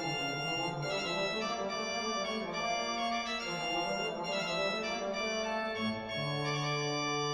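Organ music played on a Hauptwerk virtual organ sampled from the four-manual Father Willis organ of Hereford Cathedral: quick moving notes over held chords, with a low bass note sustained from about six seconds in.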